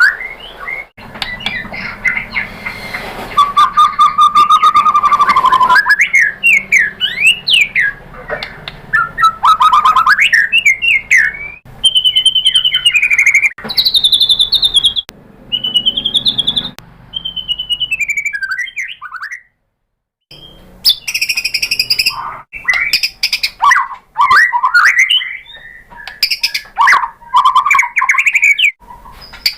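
White-rumped shama singing a rapid stream of varied, loud whistled phrases: rising and falling notes, quick chips and one held note. It breaks off briefly for about a second partway through.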